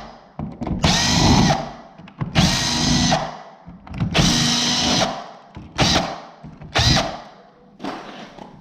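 Handheld power drill running in three bursts of about a second each, with a whine rising as each one starts, then two short blips near the end.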